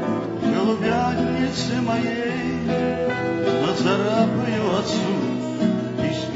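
A man singing a Russian courtyard song, accompanied by acoustic guitar.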